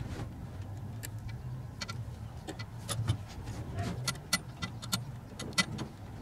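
Socket ratchet clicking in short, irregular runs of sharp metallic clicks, tightening the mounting bolts of a new throttle position sensor on the throttle body. The clicks come closer together about halfway through.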